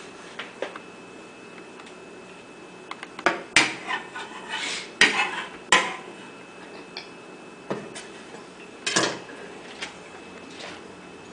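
Kitchenware being handled: pots, dishes and utensils knocking and clinking, in scattered strikes with a few scraping stretches partway through.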